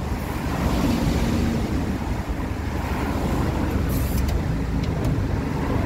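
Tow truck's engine running steadily, its sound deep and low with an even hiss above it.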